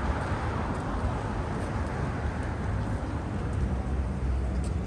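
Busy city street ambience: a steady low rumble of traffic under general urban noise.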